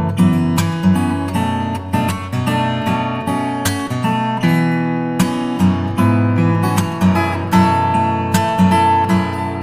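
Background music: acoustic guitar playing with a steady rhythm of plucked and strummed notes.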